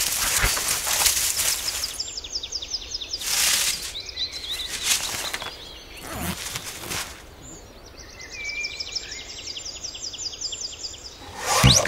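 Cartoon sound effects: several airy whooshes a second or two apart, the last and loudest near the end with a low thump, over a woodland ambience of rapid, high, evenly repeated chirping.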